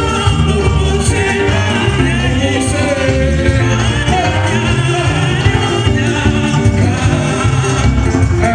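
Live gospel praise music: a man sings lead into a microphone while others sing along, over band music with a strong, steady bass line.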